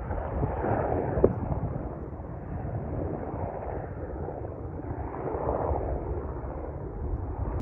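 Distant helicopter flying past: a low, steady rumble of its rotor and engine.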